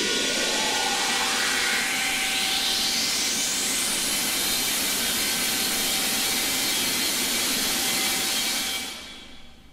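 Loud rushing hiss with a rising whine that sweeps from low to very high over about four seconds. The hiss then holds steady and fades out near the end.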